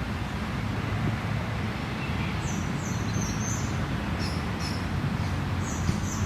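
A creek flowing with a steady, even rush of water, and a small bird giving short runs of high chirps from about two and a half seconds in.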